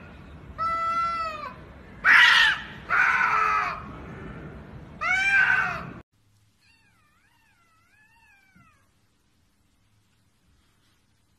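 Two domestic cats yowling at each other in a standoff: several loud, long drawn-out yowls, the one about two seconds in rougher and noisier. The sound cuts off suddenly about six seconds in, followed by a faint, high, wavering mew.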